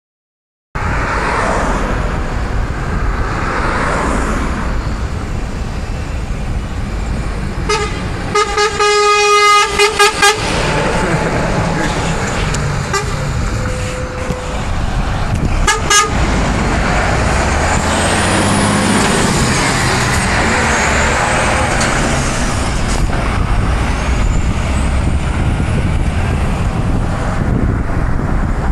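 Scania R480 tractor unit with a loaded container trailer driving past, its diesel engine running steadily. A string of short air-horn blasts sounds about eight seconds in, and one more short toot comes around sixteen seconds.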